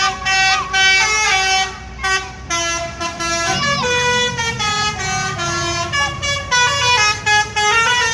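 Bus telolet horn of the basuri type playing a fast melody of short notes that step up and down in pitch, over the low running of the bus's engine.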